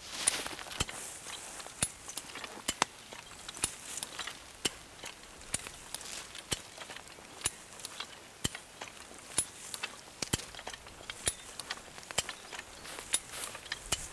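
Hi-Lift jack being worked by hand, its ratchet clicking sharply about once a second with each stroke of the handle.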